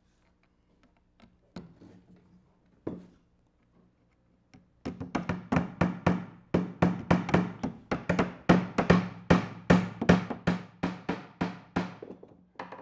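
Hammers driving small nails at an angle into wooden shelf pieces (toenailing). A few single taps, then from about five seconds in a fast run of sharp taps, about four a second, as two hammers strike at once.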